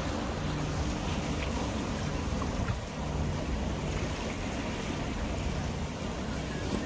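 Motorboat engine running with a steady low drone, over wind and the wash of waves.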